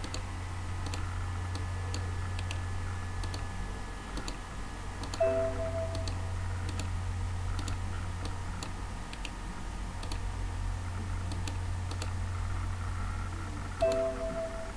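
Computer mouse clicks, irregular and a second or less apart, over a steady low electrical hum. Twice a short steady tone sounds, about five seconds in and again near the end.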